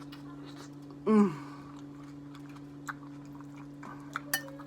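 Chewing with small wet mouth clicks over a steady low hum, broken about a second in by a brief loud vocal sound from the eater that falls in pitch.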